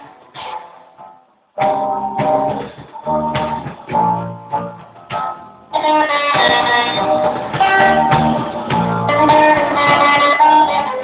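Guitar music: strummed chords start after a brief silence about a second and a half in, and the playing grows fuller about six seconds in.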